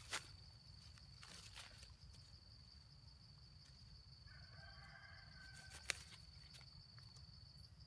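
Near silence with a faint steady high whine and low rumble, broken by two sharp clicks, one at the very start and one about six seconds in. About four seconds in, a faint distant animal call lasts about a second.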